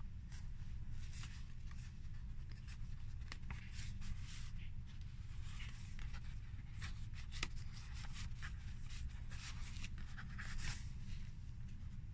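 Paper rustling and sliding in many short, irregular scrapes as the pages of a handmade junk journal are handled and a photo card is slid out of a paper pocket, over a steady low hum.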